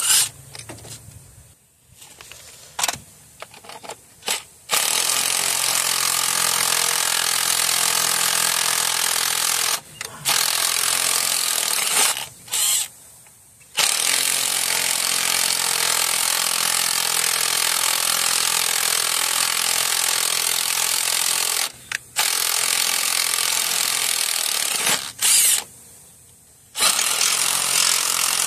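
Cordless impact wrench running in long bursts of several seconds, stopping and starting again, as it drives the forcing screw of a puller to pull the crankshaft pulley. A few short blips come first, and the longest run lasts about eight seconds.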